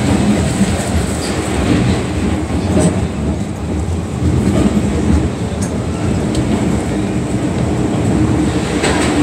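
MTR M-Train electric multiple unit running at speed through a tunnel, heard from inside the passenger car: a loud, steady rumble of wheels on rail with a constant high-pitched whine and a few faint clicks.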